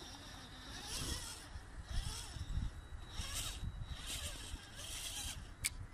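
Electric drive motor and gears of a 1/10-scale HSP RC rock crawler whining in short bursts of throttle, roughly once a second, as its snow-packed stock tires lose grip on the steep snowy slope. A sharp click near the end.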